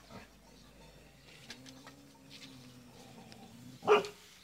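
A dog barks once, sharply, near the end, after a few seconds of quiet with a faint low drone.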